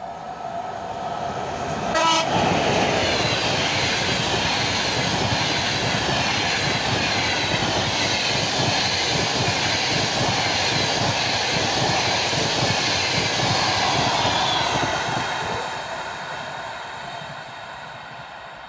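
Passenger train hauled by a ChS4 electric locomotive passing close by, with a short horn blast about two seconds in. Then comes the steady rush and clatter of the coaches' wheels on the rails, fading near the end as the train draws away.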